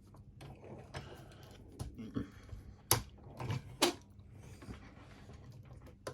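Master Lock Magnum padlock being set in a vise and clamped: a handful of separate metal clicks and knocks, the loudest about halfway through.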